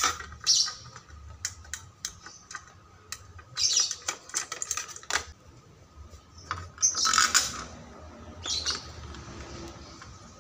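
Light metallic clicks and taps as a metal number plate and its bolts are handled and set against a scooter's front, with birds chirping in short bursts now and then, loudest about seven seconds in.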